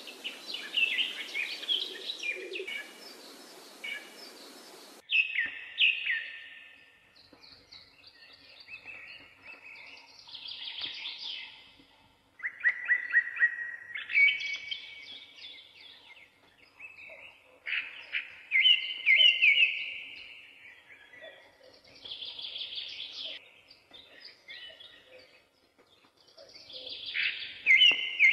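Songbirds singing: high chirping and trilling phrases repeating every couple of seconds.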